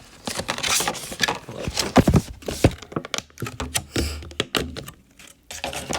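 Hands handling computer parts at a motherboard: a run of knocks, taps and clicks, with a couple of heavier thuds about two seconds in, as a RAM stick is fitted to its slot.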